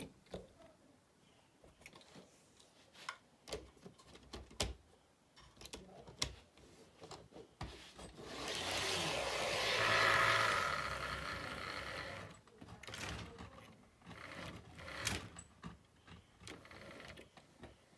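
HO scale model train running on the layout: irregular clicks of its wheels over the rail joints, with a swell of motor and gear whine and wheel noise that builds and fades between about eight and twelve seconds in as it passes close.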